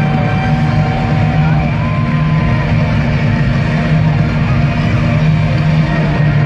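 Live rock band playing, heard loud from among the crowd, with a steady heavy bass. Near the start there are two long held notes, the second one higher.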